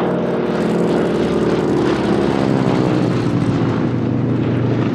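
North American T-6 Texan/Harvard's nine-cylinder Pratt & Whitney R-1340 Wasp radial engine and propeller at power in a low fly-by, the engine note dropping in pitch about halfway through as the aircraft passes.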